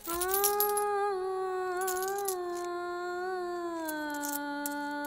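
A long held note of background music that sinks slowly in pitch about four seconds in. Over it, a few small coins clink onto a glass shop counter as they are handed over.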